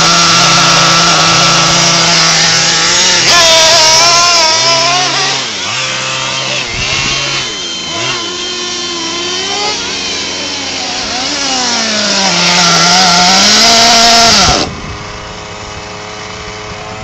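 Small nitro glow engine of a Losi LST XXL RC monster truck running during carburettor tuning: a high, steady buzz at first, then revving up and down repeatedly as the throttle is worked and the truck is driven. About fourteen and a half seconds in the sound drops sharply to a quieter, steady running note.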